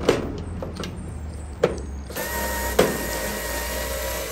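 Three sharp clicks, then from about two seconds in a small electric screwdriver's motor whirring steadily as it backs out a long Phillips screw.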